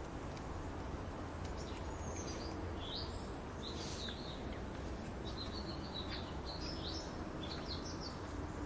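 Small birds chirping: a string of short, quick rising and falling chirps, over a steady background rumble and hiss.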